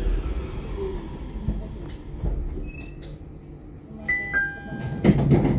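Nippori-Toneri Liner rubber-tyred automated guideway train running, heard from inside the car. About four seconds in, a short electronic chime of a few clear tones sounds, and near the end comes a louder clatter.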